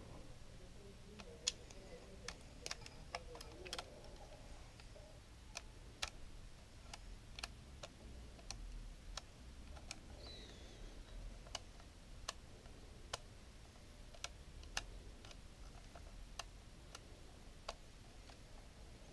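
Faint, sharp little clicks, about twenty of them and irregularly spaced, from a screwdriver and the small metal and plastic parts of an opened Lomography LC-A+ camera's lens and focus-lever mechanism being worked by hand.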